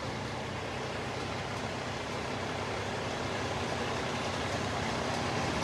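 Steady low engine rumble with street noise, growing slightly louder toward the end.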